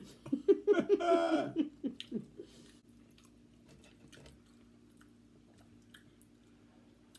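Chewing of pigs in a blanket and french fries: soft, wet mouth clicks and smacks, faint after the first few seconds. A short vocal sound is heard in the first two seconds.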